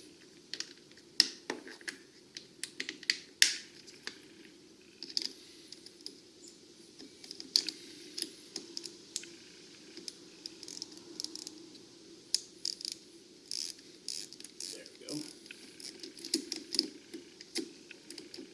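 Wrench loosening a car battery's positive terminal clamp: irregular metallic clicks and clinks of the tool on the nut and terminal, over a faint steady hum.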